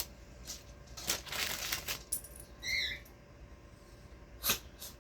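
Small kitchen handling noises: a few sharp clicks and knocks, a short rustle, and one brief high squeak about three seconds in.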